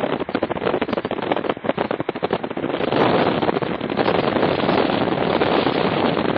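Wind rushing over the microphone in a moving car, crackling for about the first three seconds, then a steadier, louder rush.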